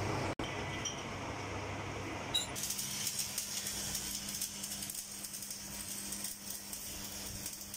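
Electric arc welding: the arc strikes about two and a half seconds in and keeps up a steady crackling hiss, with a steady low hum under it.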